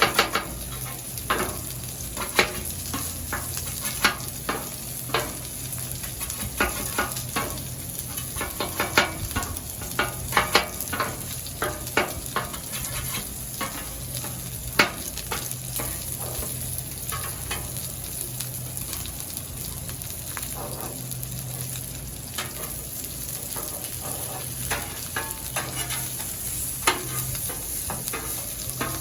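Food sizzling on a Blackstone flat-top griddle, with repeated sharp clicks and scrapes of a metal spatula on the steel cooktop, frequent in the first half and fewer later.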